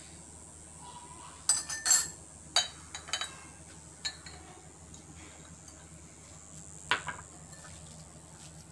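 A spoon and small glass bowls clinking against each other and the countertop: several sharp clinks in the first few seconds, then one more about seven seconds in.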